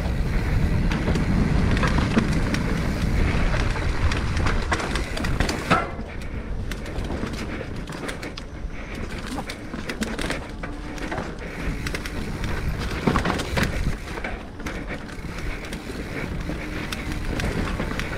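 Full-suspension mountain bike (Giant Trance X 29) descending a dirt trail: tyres rolling on the ground with frequent rattling clicks and knocks from the bike, over a low rumble of wind on the microphone that is stronger for the first few seconds.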